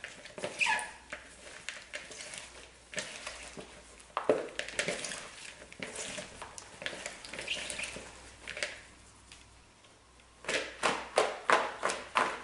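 Gloved hands mixing raw shrimp with tapioca starch in a large plastic mixing bowl: irregular squelching, rustling and clicks of shrimp against the bowl. Near the end the bowl is shaken to toss the shrimp, a quick regular run of thumps about three a second.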